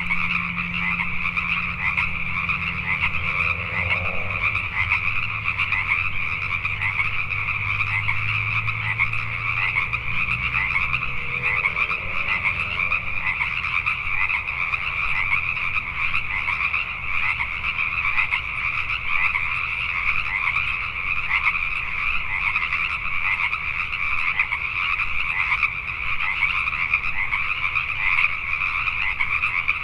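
A dense chorus of many Pacific tree frogs calling at once, their short calls overlapping into a continuous din. A faint low steady hum lies underneath.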